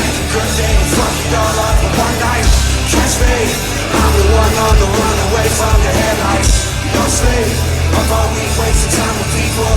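Loud live pop-punk band playing through a venue PA, with a steady drum beat under distorted guitars.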